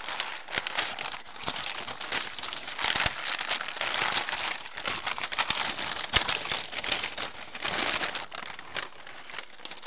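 Brown kraft wrapping paper crumpling and rustling as hands unwrap a parcel: a continuous crackle of crinkles.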